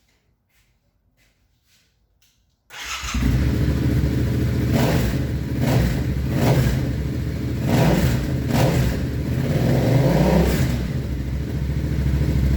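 Yamaha XSR700's 689 cc parallel-twin engine, breathing through a TEC Bike Parts 2-into-1 stainless steel full exhaust, running and being revved. It comes in suddenly about three seconds in and is blipped up about four times.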